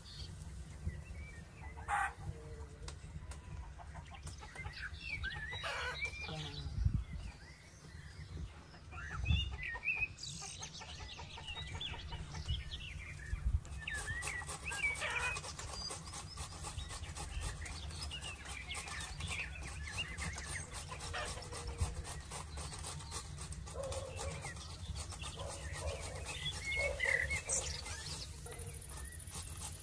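Chickens clucking and calling over a steady low hum, with a fast faint crackle coming in about halfway through.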